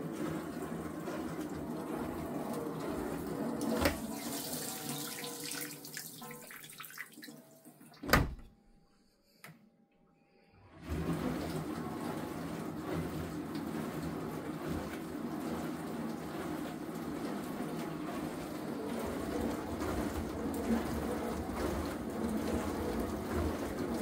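Beko dishwasher running, with a steady rush of water inside it that fades away after about four seconds. A sharp click comes about eight seconds in, then a couple of seconds of near silence before the water sound starts up again and runs on steadily.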